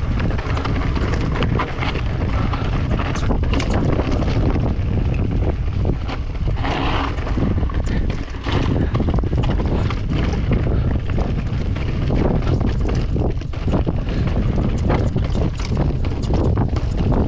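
Wind buffeting the microphone of a mountain bike ride, with the clatter and knocks of the bike rolling over rough, rocky trail throughout and a brief hiss about seven seconds in.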